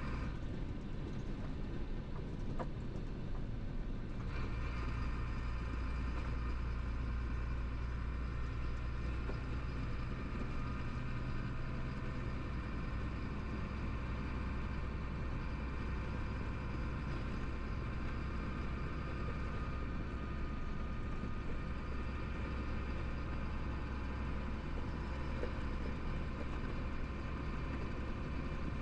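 Cab interior sound of a Dongfeng Chenglong 375 truck cruising on the highway: the diesel engine hums steadily under a wash of road and cab noise. About four seconds in, the engine note grows fuller and a set of steady higher tones comes in, then holds.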